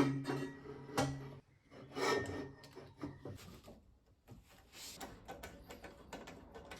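Intercooler piping being worked into place by hand: rubbing and scraping with scattered knocks and clicks as the pipe is pushed and twisted to meet its connection.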